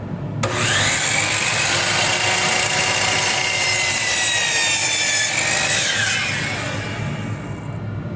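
Electric miter saw cutting an angled cut across a board of 1x wood stock. The motor is already running; about half a second in the blade goes into the wood with a loud, steady cutting noise and whine. Near six seconds in the whine drops in pitch and the sound eases to the motor running on its own.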